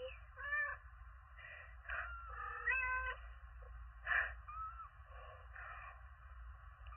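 Domestic cat meowing: a series of short meows, some with a clear pitch that rises and falls or climbs in steps, others rougher and noisier, the loudest about four seconds in.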